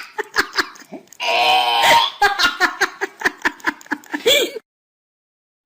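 A person giggling in rapid short bursts after a brief voiced sound, cut off abruptly into silence about four and a half seconds in.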